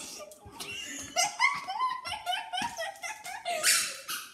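A young child giggling in quick, repeated high-pitched bursts, with a loud breathy burst about three and a half seconds in before the laughter stops.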